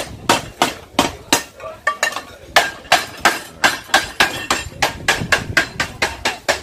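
Steady hammer blows on a metal cooking pot, about three a second and coming a little faster toward the end, some with a short metallic ring: a pot's dents being beaten out.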